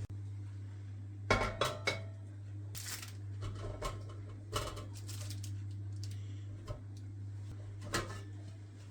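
Dishes and cutlery clinking and knocking against each other, a quick cluster of knocks between one and two seconds in and a few more scattered after, over a steady low hum.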